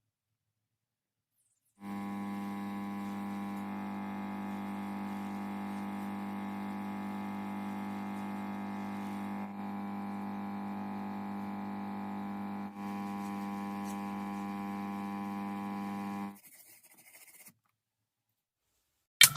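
Steady electrical hum, buzzy with many overtones, starting about two seconds in and cutting off sharply a few seconds before the end.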